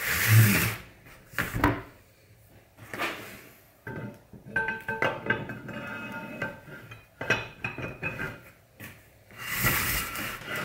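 Steel guide bars and the cast-iron jaw of a woodworking vise being handled and fitted together on cardboard: a run of metal clunks and scrapes, with short ringing as the bars slide through the jaw.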